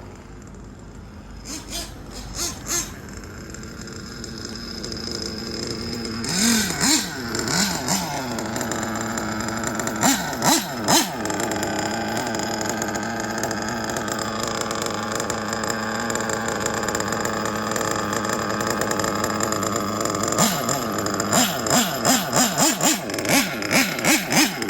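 Small nitro engine of a Kyosho Inferno NEO ST 3.0 RC truck running, with quick throttle blips that make its pitch jump up and fall back: a few a little after the start, and a rapid series near the end.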